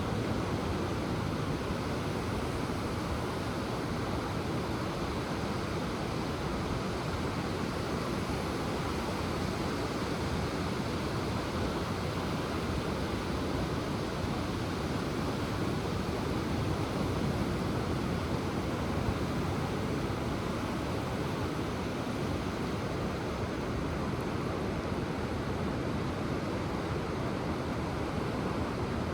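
Ocean surf: a steady, even rush of waves washing in, with no single breaking crash standing out.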